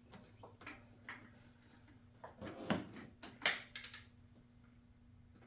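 Ratcheting torque wrench clicking in short, uneven runs while tightening the oil filter cap, with the densest clicks near the middle.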